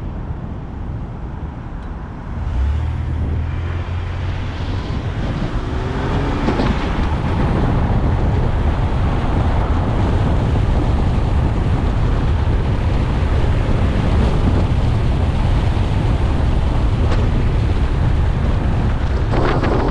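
Car on the move: steady low road and engine rumble with wind buffeting the microphone, growing louder over the first eight seconds or so and then holding steady.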